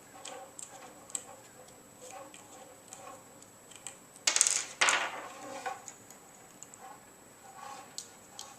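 Small clicks and taps from a toy lightsaber's internal parts being handled. About four and five seconds in there are two short, louder scrapes as the internal assembly is pulled down and pushed back inside the aluminium hilt.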